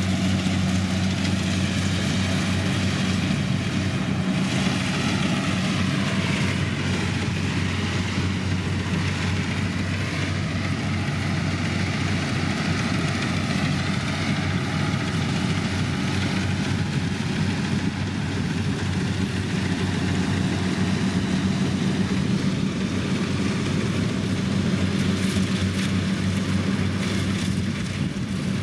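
Kubota DC-105X combine harvester's diesel engine and machinery running steadily: a constant low hum over an even mechanical noise.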